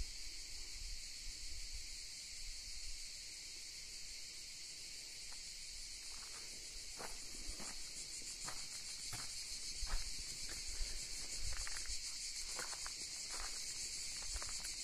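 A steady, high-pitched insect chorus, with footsteps crunching on gravel and rock from about five seconds in.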